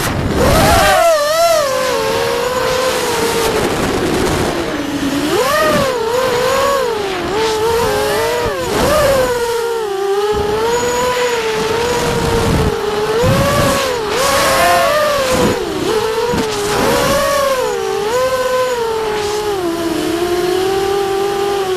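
Racing quadcopter's electric motors and propellers whining, recorded onboard, the pitch rising and falling constantly with the throttle, with a brief drop about halfway through.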